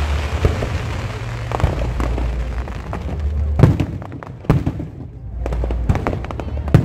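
Aerial fireworks bursting: a string of sharp bangs over a continuous low rumble. The loudest bangs come about halfway through and near the end.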